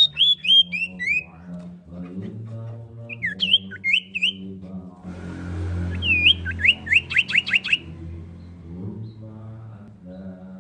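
Common iora calling: a run of falling whistled notes, then a few slurred notes about three seconds in, and a quick series of sharp notes about six to eight seconds in.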